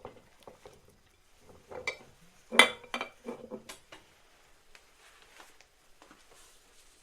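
Glass jars being handled and set down on a hard surface as they are laid out to air-dry after sterilizing. A cluster of clinks and knocks runs from about two to four seconds in, the loudest about two and a half seconds in, with lighter taps around it.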